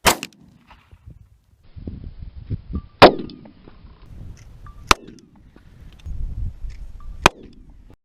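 Four gunshots fired about two seconds apart, each a sharp crack with a short ring after it; the second is the loudest.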